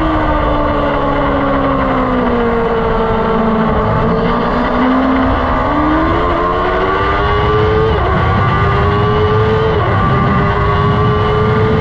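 A track-day vehicle's engine heard onboard. Its pitch falls as it slows over the first few seconds, then climbs under acceleration, with two upshifts about 8 and 10 seconds in.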